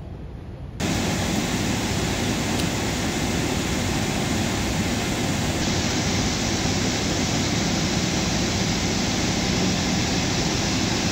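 Steady rushing noise with a deep rumble under it, starting abruptly about a second in and holding even.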